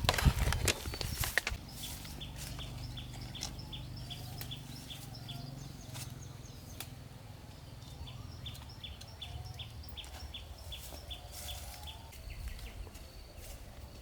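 A bird calling a steady series of short, high chirps, about three a second, in two runs. A few clicks and rustles come near the start.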